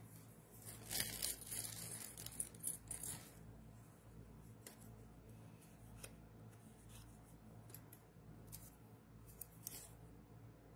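Faint rustling of paper and light clicks as cards and small items are handled by hand, busiest in the first few seconds, then a few scattered taps.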